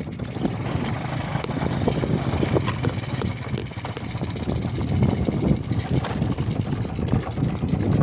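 Small motorcycle engine running under way over a bumpy dirt and grass trail, with scattered knocks and rattles from the ride.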